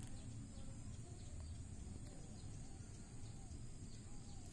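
Faint outdoor background with a steady low hum and short, faint bird calls repeating every second or so.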